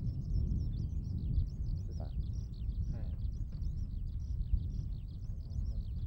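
Eurasian skylark singing in song flight: a long, unbroken stream of rapid, varied high chirps and trills. It sits over a steady low rumble.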